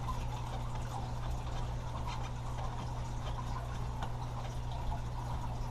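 Steady low hum with faint, scattered small clicks of a hand tool and small metal parts being handled as a screw is undone.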